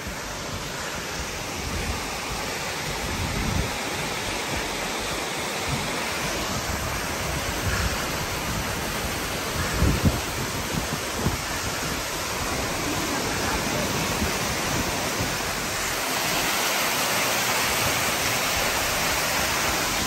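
Steady rushing of a cascading waterfall, a little louder in the last few seconds, with a few low thumps around the middle.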